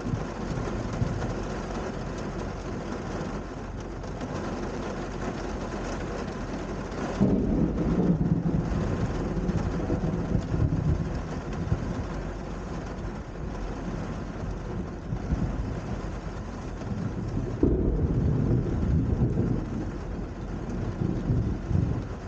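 Steady rain with two rolls of thunder. The first comes in suddenly about seven seconds in, the second near eighteen seconds, and each rumbles for several seconds.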